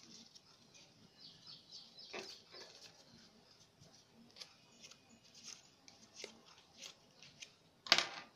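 Faint rustling and crinkling of craft paper being handled by hand, with small ticks throughout and one sharper click near the end.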